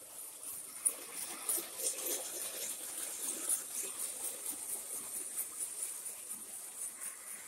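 Prewar standard gauge toy electric locomotive and passenger cars running on three-rail tinplate track: a steady rattling rumble with many small clicks, and a sharp click about a second in.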